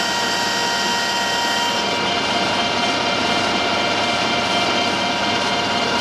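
Metal lathe running under power as it turns a steel workpiece down toward the thread's root diameter: a steady machine whine with several held tones over a hiss.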